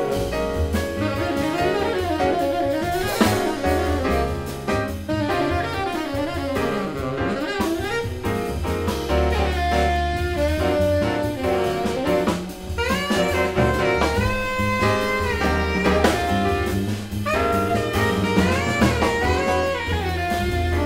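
Tenor saxophone soloing over plucked double bass and drum kit in a live jazz quartet, with a couple of rising glides in the second half.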